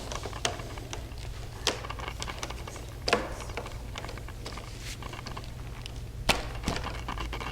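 PVC pipe parts of a goal frame clicking and knocking now and then as a crossbar is pushed through and into the corner fittings, with one stronger knock about three seconds in. A steady low hum runs underneath.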